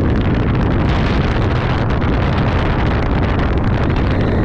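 Wind rushing over the microphone together with the steady rumble of a B&M wing coaster train running at speed on its steel track.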